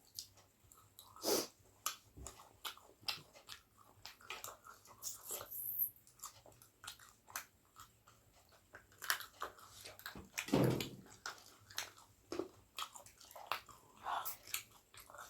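Close-up chewing and biting of pork, with irregular wet smacks and clicks of the mouth, some louder than others.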